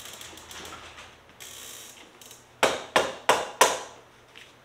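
Ratchet wrench clicking in two short runs as the exhaust clamp is tightened, then four loud sharp knocks about a third of a second apart, a little past halfway.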